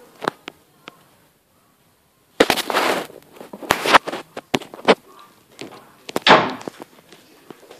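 A girl yawning close to the microphone, with loud breathy exhales, among sharp clicks and knocks from a handheld camera being handled. There is a gap of dead silence of about a second near the start.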